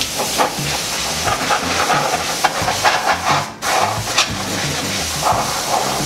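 Can of compressed air spraying steadily into a PC power supply, blowing out caked-on dust, with a brief pause about three and a half seconds in.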